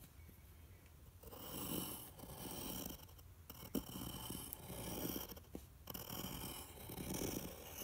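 Pencil scratching across paper in several strokes while writing a cursive letter M, starting about a second in, with a couple of light clicks between strokes.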